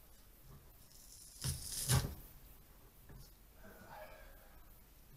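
Dogfish skin being pulled off the body with pliers, with two short rough tearing sounds about a second and a half and two seconds in.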